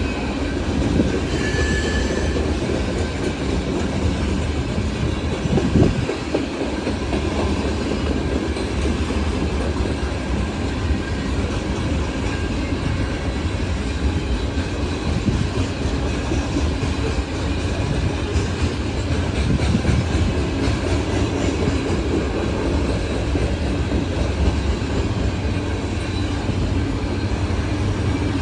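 Freight train of loaded covered-hopper grain cars rolling past: a steady rumble of steel wheels on rail with clickety-clack over the rail joints, and a brief high wheel squeal about two seconds in.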